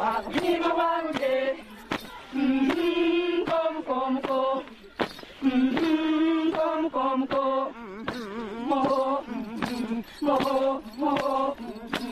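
Women's group chant, a repeating melody of held notes, sung by Xingu dancers, with a steady beat of sharp knocks keeping time.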